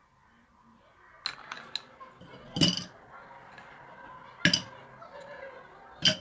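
Glass clinking: a few light taps, then three louder clinks about two seconds apart.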